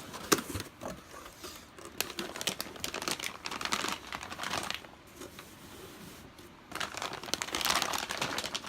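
Packaging crinkling and rustling as parts are handled in an opened shipping box, in two spells with a quieter pause between. There is a sharp knock just after the start.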